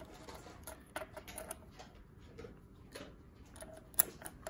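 Small plastic pump parts, a gear and a black piece, clicking and tapping faintly as they are handled and fitted together, with a sharper click about four seconds in.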